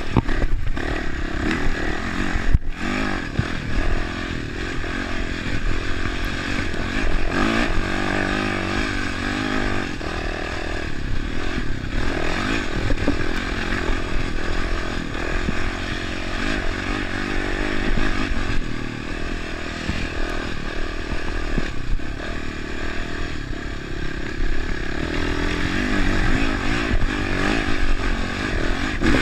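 Dirt bike engine running hard, its revs rising and falling continuously as the bike is ridden over a rough, rutted dirt track.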